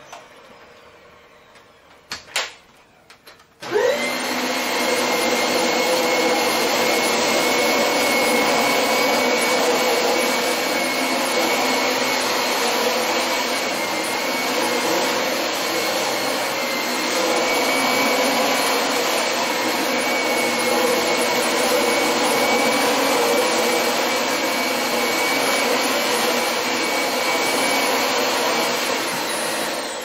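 A few clicks, then a vacuum cleaner switches on about four seconds in, spins up quickly and runs steadily with a high whine over its motor noise.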